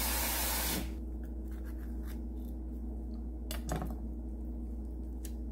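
Running tap water hissing, cut off under a second in. Then quiet handling of a whole avocado on a plastic cutting board, with a few faint clicks and one soft knock past the halfway point.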